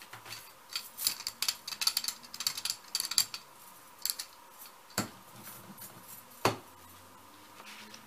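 A quick run of small clicks and light clinks, then two sharper knocks about a second and a half apart, from paint supplies and a brush being handled and tapped on a worktable while violet paint is added to a gel printing plate.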